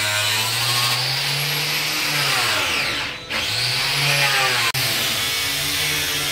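Handheld electric power tool whining, winding down almost to a stop about three seconds in and then spinning back up to speed.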